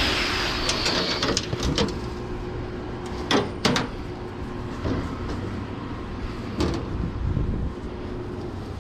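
Scraping and knocking as a heavy scrap air-conditioning unit is shifted and secured on a pickup truck, with a few sharp clanks, two close together about three and a half seconds in and one more near seven seconds, over a faint steady hum.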